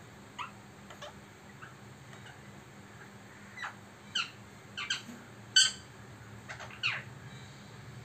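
Indian ringneck parakeet giving a string of short, sharp chirps and squeaks, the loudest about five and a half seconds in and a falling squeak near the end.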